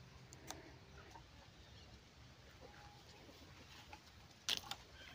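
Near silence with faint outdoor ambience: a few soft clicks, a brief faint note about halfway through, and a short, louder burst of clicking and rustling near the end.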